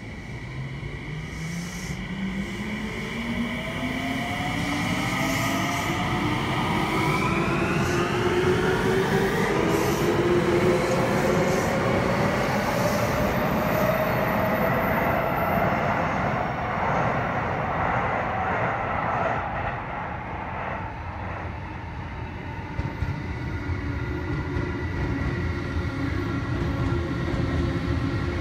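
Electric commuter train pulling out and accelerating along the platform, its traction motors whining in a stack of tones that climb steadily in pitch for about twelve seconds over wheel and rail rumble. Louder as it passes, then steadier tones near the end.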